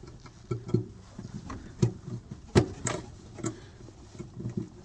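Scattered light clicks and knocks of hands handling parts or tools on the furnace, with the sharpest knock about two and a half seconds in.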